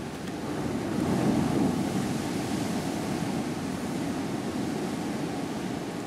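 Open-sea waves washing, with wind on the microphone; the wash grows louder about a second in and then holds steady.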